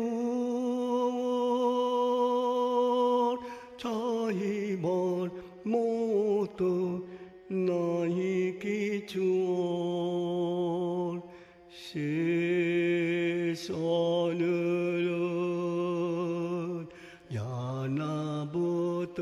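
A man singing a slow Bengali devotional song, holding long, slightly wavering notes with short breaks between phrases.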